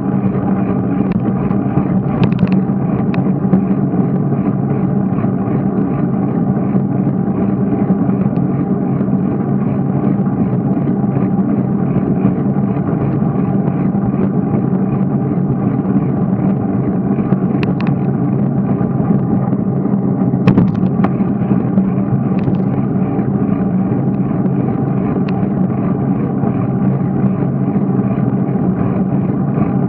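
Steady rushing noise of a bicycle riding along smooth asphalt: wind and rolling noise on the riding camera's microphone. A few short sharp clicks or rattles come through, about two seconds in and twice near eighteen and twenty-one seconds.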